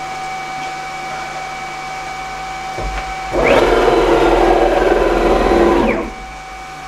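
CNC router's spindle running with a steady whine; about three seconds in, the gantry's closed-loop stepper motors drive a rapid move, a loud whir that rises in, holds for nearly three seconds and winds down again.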